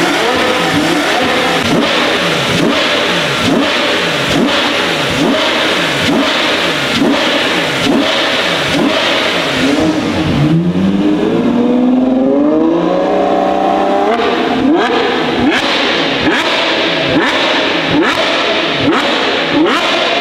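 Ferrari 812 Superfast's naturally aspirated 6.5-litre V12, breathing through a Novitec exhaust, being revved hard while the car stands still. It gives quick repeated blips of the throttle, about one a second. Around ten seconds in, one longer rev climbs higher for a few seconds before the quick blips return.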